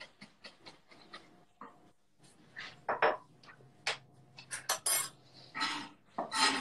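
Chef's knife chopping fresh herbs on a wooden cutting board: a quick run of light, even taps at about five a second. From about two seconds in come louder, irregular knocks and clinks of kitchen work.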